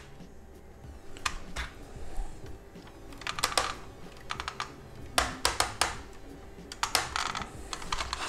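Small plastic clicks and taps in short clusters from a VW Golf 5 instrument cluster being handled, as its gauge needles are pressed onto their shafts and turned.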